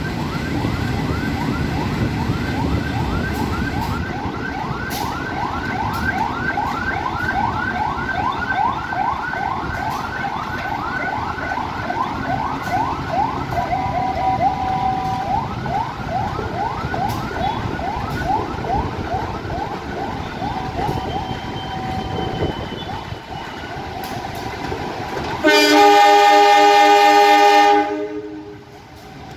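A diesel locomotive's horn sounds one loud chord-like blast of about two and a half seconds near the end. Before it, an electric commuter train rumbles away while a siren yelps in quick rising sweeps, about three a second, briefly breaking off midway.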